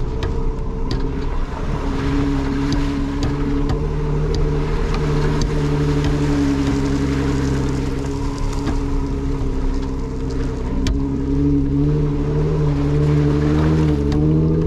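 Jeep Wrangler engine running steadily as the Jeep drives along a muddy dirt track, its pitch wavering slightly near the end. Tyres rumble over wet gravel, with scattered sharp ticks.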